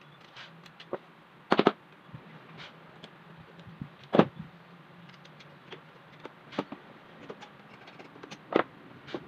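Metal-on-metal clicks and knocks of a screwdriver working against an electric fan motor's housing as it is pried open. A quick cluster of sharp knocks comes about one and a half seconds in, then single knocks every two seconds or so, with small ticks between, over a faint steady hum.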